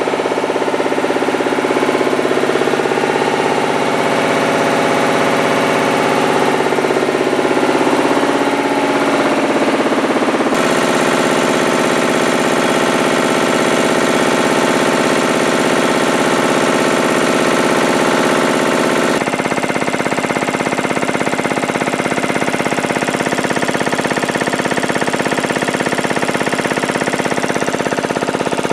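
Matsubara CMH 114A marine piston air compressor, driven by an electric motor, running steadily on a test bench. The sound is a loud, even machine drone with a fast clatter, and its tone shifts abruptly twice.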